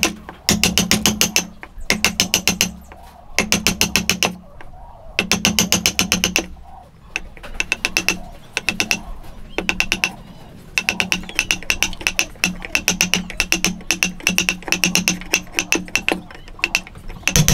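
Bench chisel driven by rapid hammer blows, chopping waste out of a dovetail socket in hardwood. Quick bursts of about ten ringing taps a second, each burst lasting about a second, with short pauses between.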